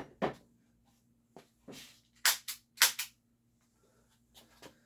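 HPA-powered torpedo revolver being degassed: three sharp, very short pops of compressed air released in quick succession about two seconds in, with a few light mechanical clicks of the gun being handled before and after.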